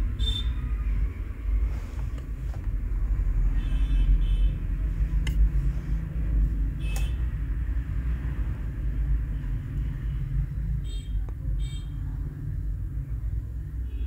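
A steady low rumble of background noise, with a few faint short sounds over it.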